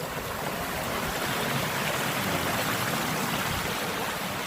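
Stream water running steadily, an even rushing hiss.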